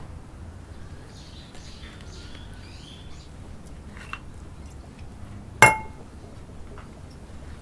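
A glass wine bottle clinks once, sharply, about five and a half seconds in, with a short ring, as a plastic orchid pot pressed down over its neck knocks against it. A smaller click comes a little before, and soft rustling early on as the pot is worked down the bottle.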